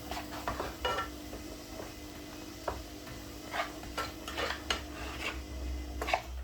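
Cooking utensil stirring and scraping in a frying pan, with irregular clinks against the pan. Under it a steady low hum stops near the end.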